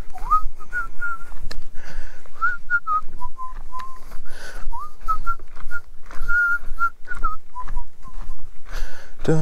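A man whistling a tune, short notes that often start with an upward slide.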